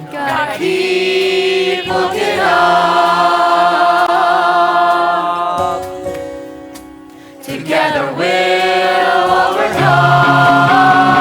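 Pop-rock song with a group of voices singing long held notes over sustained chords, easing off briefly about six seconds in before the held voices come back.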